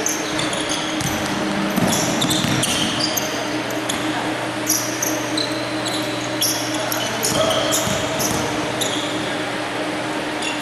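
Basketball game on a hardwood court: sneakers squeaking in many short, high-pitched chirps as players cut and stop, with the ball bouncing now and then.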